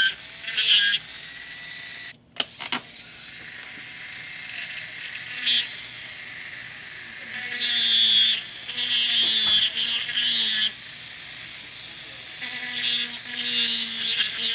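Dental lab handpiece running, its burr grinding a groove into an acrylic oral appliance along the crack line, over a steady motor whine. The grinding comes and goes as the burr bites, with a brief break about two seconds in.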